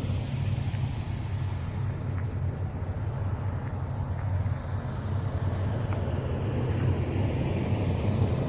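Steady low rumble of a vehicle driving: road and engine noise.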